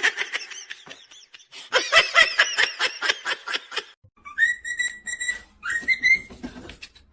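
High whistling: a run of quick warbling chirps, then a long steady whistle and a shorter rising one.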